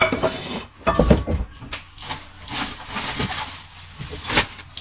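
Plastic bubble wrap rustling and crinkling as it is pulled out of a cardboard box, with a thump about a second in and a sharp crackle near the end.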